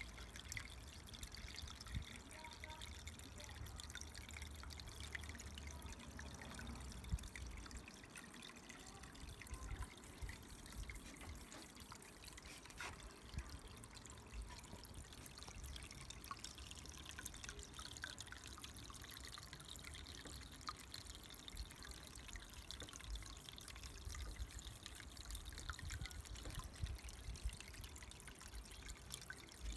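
Water trickling and splashing as it spills from the outlet pipe of a wine-barrel pond into the pool below, with many small drips and splashes.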